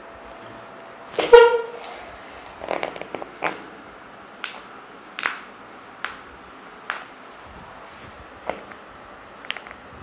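A vehicle horn gives one short, loud honk about a second in. It is followed by about nine sharp clicks and knocks, roughly one a second, as the patient's leg and ankle are worked by hand on the treatment table.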